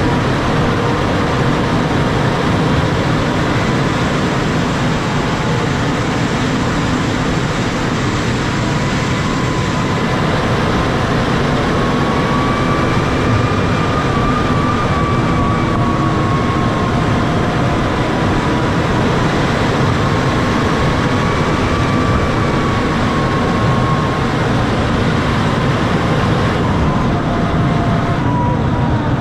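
John Deere 6155R tractor's six-cylinder diesel running steadily under load as its front blade plows snow, with a thin whine that slowly rises and falls in pitch.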